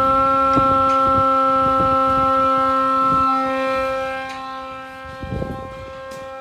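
Siren sounding one steady, held tone with strong overtones. It drops noticeably in loudness about four seconds in while its pitch stays the same. Wind gusts buffet the microphone.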